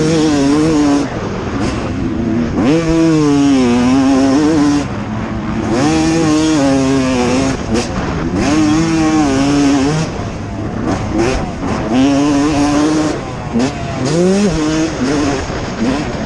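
Two-stroke motocross bike engine under hard racing throttle, climbing in pitch and dropping back as the throttle is rolled on and off, about five times.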